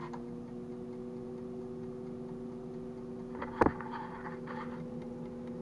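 Farberware air fryer's fan motor running with a steady hum of a few even tones. A single sharp knock and some brief clatter come about three and a half seconds in.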